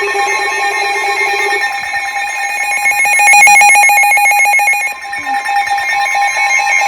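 Emergency Alert System warning tones: several steady electronic alert tones sounding at once, with a louder, fast-pulsing buzzy stretch in the middle, heralding a new weather warning.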